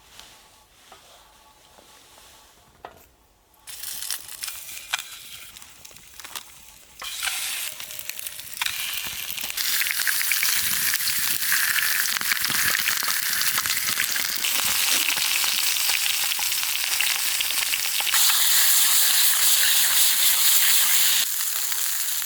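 Sausages frying in a hot oiled pan over a campfire: a crackling sizzle that starts a few seconds in and grows loud and steady.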